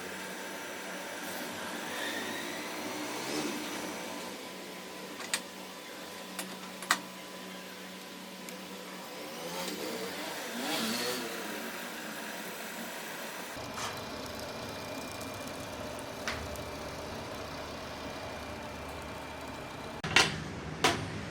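Engines rising and falling in pitch, twice, over a steady background, with a few sharp clicks and taps.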